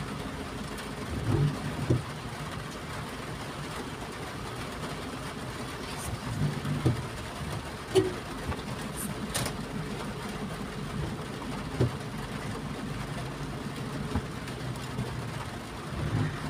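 Vehicle engine idling in stop-and-go traffic, heard from inside the cabin: a steady low hum with a few brief louder bumps.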